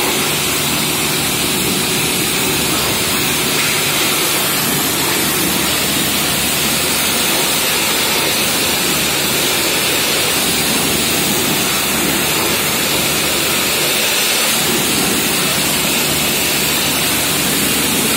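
Karcher HD 9/20 200-bar high-pressure washer spraying: its water jet hisses steadily and loudly against plastic crates, with the machine running underneath.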